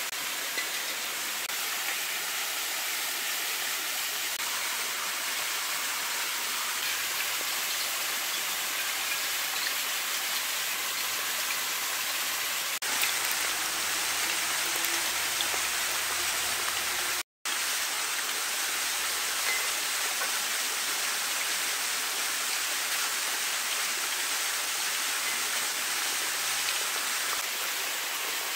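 Whole potatoes sizzling and bubbling in hot oil in an iron wok over a wood fire, over the steady rush of a small waterfall. The sound drops out for a moment a little past the middle.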